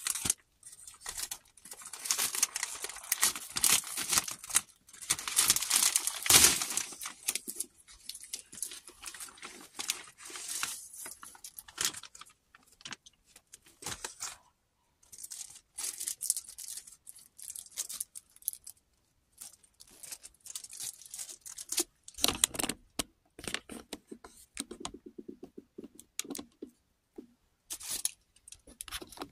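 Plastic mailer bag being torn open and crinkled by hand, loudest in the first several seconds. It is followed by scattered crinkling of clear plastic wrap as a wrapped item is handled.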